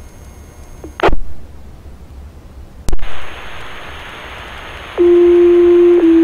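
Fire dispatch radio channel: two short squelch bursts as the transmitter is keyed, then an open-carrier hiss. About five seconds in a loud steady paging alert tone starts and steps to a slightly lower second tone a second later: the two-tone sequential page that sets off volunteer firefighters' pagers.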